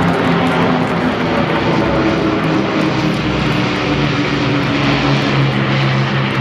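Propeller-driven aircraft engines running loudly in a fly-past, the engine tone dropping in pitch about halfway through as the aircraft passes.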